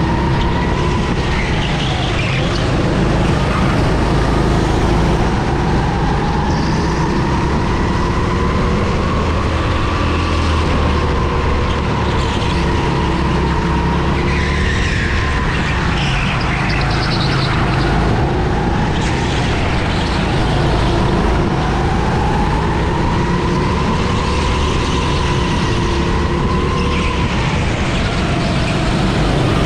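On-board sound of a racing kart's engine under race load, its pitch climbing and dropping several times as it accelerates and lifts through the lap, over a constant low rumble.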